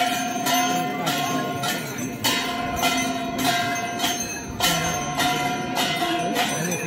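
Metallic bell-like strikes in a steady beat, a little under two a second, each leaving a ringing tone, over the murmur of a crowd.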